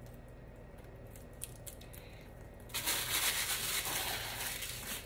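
A few faint handling ticks, then from about three seconds in a couple of seconds of crinkly rustling as plastic packaging is handled and pulled from a small leather pouch.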